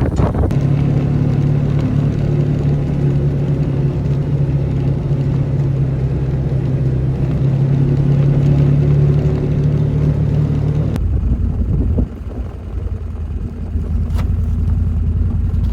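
A vehicle engine running steadily, its note dropping to a lower, rougher hum about eleven seconds in.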